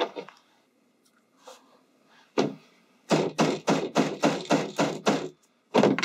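A yellow plastic mallet hammering a metal snap-setting tool against a wooden slab, driving a prong snap's prongs into its post. One blow comes about two seconds in, then a fast run of about ten blows at about five a second, and a last blow near the end.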